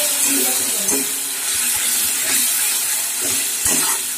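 Tomato, onion and ginger-garlic paste frying in hot oil in an aluminium kadai: a steady sizzle, with a metal spatula scraping and stirring through it.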